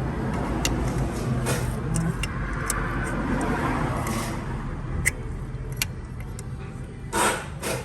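A motor vehicle's engine running nearby with a low hum that fades slowly, scattered with sharp light clicks, and two short scraping noises near the end.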